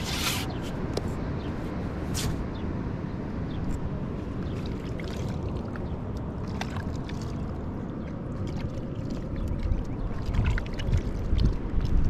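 Wind buffeting the microphone in the open: a steady low rumble that grows in gusts near the end, with a few short rustles and taps over it.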